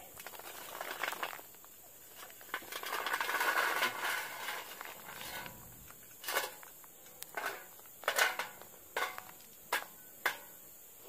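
Lit charcoal briquettes poured out of a metal chimney starter onto a heap: a rattling rush of tumbling briquettes, then a string of separate clinks and knocks as the last ones are shaken out.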